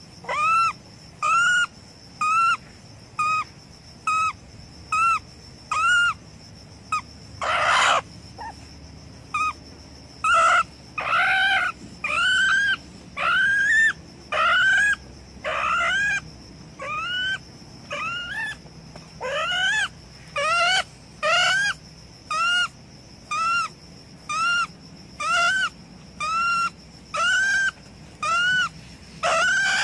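Trapped ferret-badger squealing over and over, a series of loud rising-and-falling cries about one or two a second, becoming longer and closer together in the middle.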